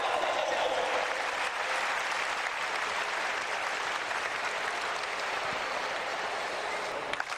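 Stadium crowd applauding steadily.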